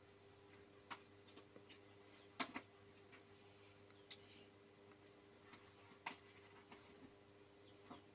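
Faint, scattered clicks and taps of kittens' paws and claws on a clear plastic box, the loudest about two and a half and six seconds in, over a low steady hum.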